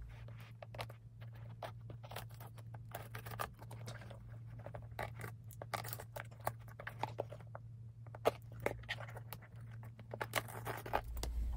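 A mail package being opened by hand: faint, irregular scratching, crinkling and tearing with scattered sharp clicks, over a low steady hum that stops near the end.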